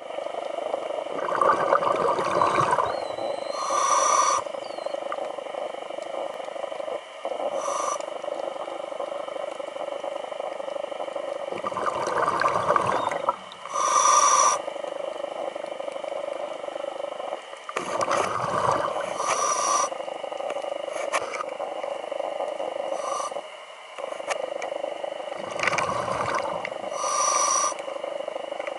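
Scuba diver breathing through a regulator, repeating about every six seconds: a long bubbling exhale, then a short hissing inhale with a thin whistle. Under it runs the steady hum of the camera. About three seconds in a dugong gives a faint, brief rising chirp.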